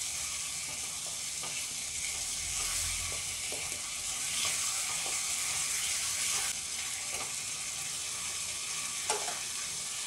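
Thick semolina and banana sweet sizzling and bubbling in a non-stick kadai on a gas flame, stirred with a wooden spatula that scrapes softly and irregularly against the pan.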